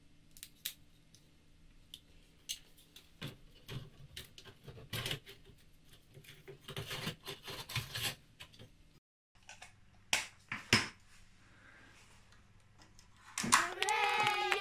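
Clicks and rustles of cable plugs being pushed into a homemade CNC router's mesh-cased power supply and stepper-driver box, then two sharper clicks a little after the middle. Near the end the stepper motors whine, the pitch rising quickly, holding, then falling as they speed up and slow down.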